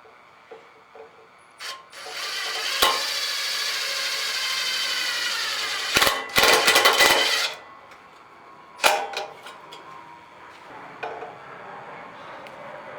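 A handheld electric power tool running for about five seconds, its pitch sagging a little under load, with loud harsh bursts of metalwork near the end of the run. Scattered clicks and knocks of metal parts being handled come before and after it.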